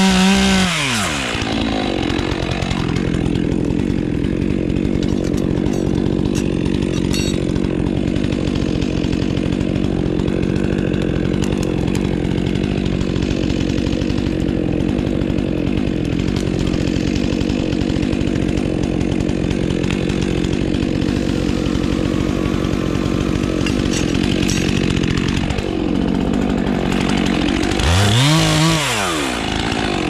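Stihl MS 400 C two-stroke chainsaw revving up and down, then running steadily for most of the time, and revving again near the end.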